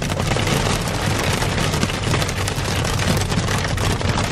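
Hail and rain pelting the car's roof and windshield, heard from inside the moving car as a dense, unbroken clatter over the low drone of the road.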